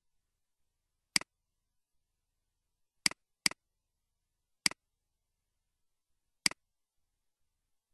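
Computer mouse button clicking five times, each click a quick two-part press-and-release. Two of the clicks come close together about three seconds in.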